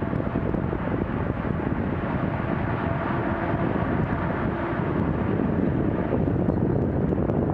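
Steady motorway traffic noise of cars and lorries crossing a concrete viaduct, the tyres and engines blending into one even rush. A faint low engine hum rises out of it about three seconds in and lasts under two seconds.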